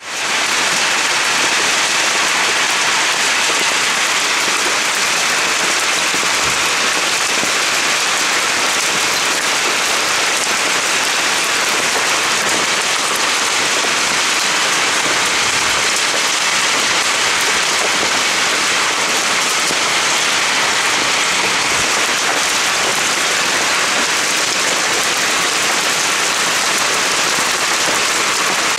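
Hailstorm: hail and heavy rain pelting down, a loud, dense, steady hiss made of countless small impacts.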